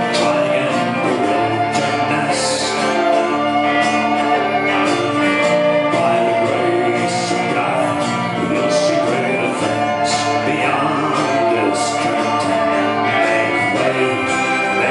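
A live band playing a folk song, with string instruments sustaining tones over a steady rhythm.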